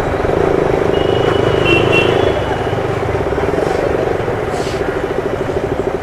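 Motorcycle engine running steadily on the move, with road and wind noise; its note turns into a fine, even pulsing about halfway through. A short high-pitched beep sounds about a second in.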